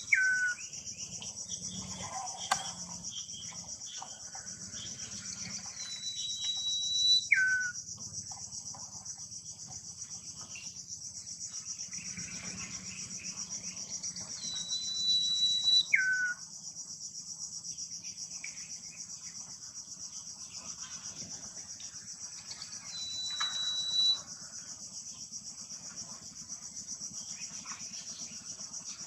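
Common iora (sirtu) singing long drawn-out whistles: each is a held high note that drops sharply at the end. They repeat about every eight seconds, four times, over a steady shrill drone of insects.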